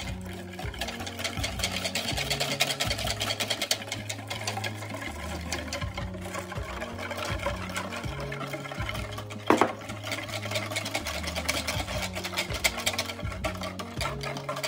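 Wire whisk beating fast against the sides of a plastic mixing bowl, a rapid run of clicks as it mixes the egg yolks, starch and milk for a custard. There is one louder knock about two-thirds of the way through.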